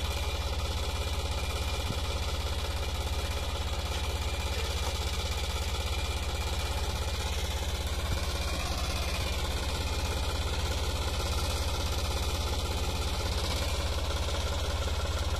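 Farm tractor's diesel engine running steadily: a constant low hum that holds the same speed and level throughout.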